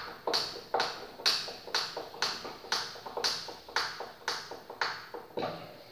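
Screwdriver work on PVC wiring trunking: a steady series of sharp taps, about two a second, stopping shortly before the end.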